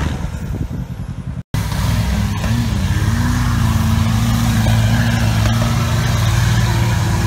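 Off-road trial buggy engines run hard under heavy load as the buggies climb a steep dirt slope, a steady, loud drone. It opens with rougher engine noise and knocks that break off in a brief dropout about a second and a half in.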